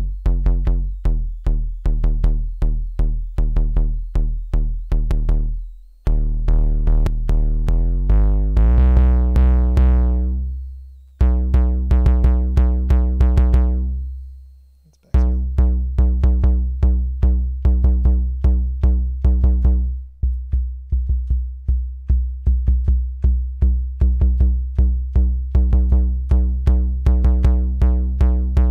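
Akai Rhythm Wolf analog drum machine playing a rapid, even run of heavily distorted bass-drum hits through its howl distortion: a gabber-style kick. The pattern stops and restarts a few times, and the kick's pitch is turned up partway through.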